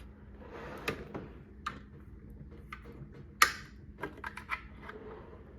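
Hand tools clicking and knocking as they are handled in a metal tool cart drawer, with a faint rustle near the start and one sharp clack about three and a half seconds in.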